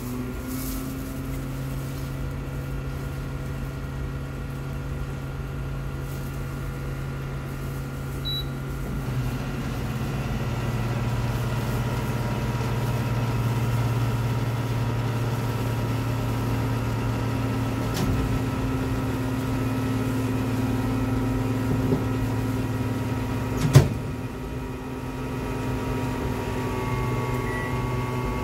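Automatic ramyeon cooking machine running with a steady hum while it dispenses hot water into a paper noodle bowl. There is a single sharp click about 24 seconds in, and the pouring has stopped by the end.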